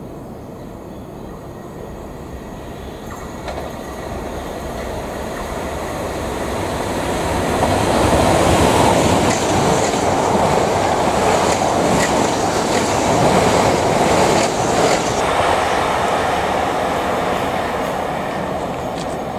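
South Western Railway electric multiple unit passing on the line. Wheel and rail noise builds up, is loudest from about eight to fifteen seconds in with a few sharp clicks, then fades as the train moves away.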